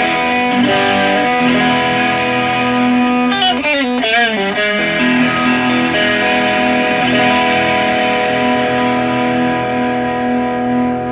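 Fender Japan ST54-95LS Stratocaster-style electric guitar on its middle pickup, played through a Boss SD-1 overdrive: sustained, ringing chords, with notes bent and wavering in pitch about three to five seconds in.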